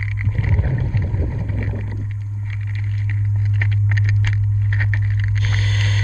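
Underwater recording: a steady low hum throughout, with a stretch of bubbling in the first two seconds and scattered small metallic clicks as pliers work at the end of a propeller shaft.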